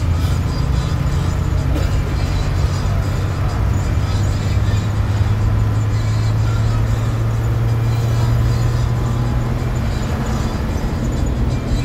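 Isuzu FRR33 school bus's diesel engine and road noise heard from inside the moving bus: a steady, loud low drone whose pitch creeps up a little about four seconds in as the bus pulls harder.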